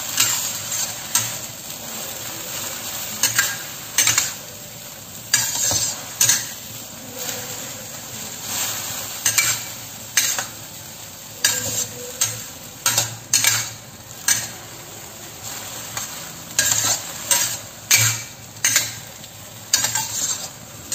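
A metal spatula scraping and knocking against a stainless steel wok as sweet potato leaves are stir-fried, in short irregular strokes over a steady sizzle.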